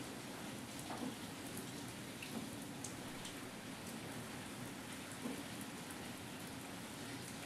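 Light drizzle falling steadily, with louder single drops landing now and then, the clearest about a second in, two and a half seconds in and five seconds in.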